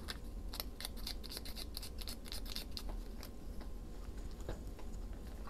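Small sharp clicks and scratches of craft materials being handled at a work table, with a quick run of clicks between about one and three seconds in.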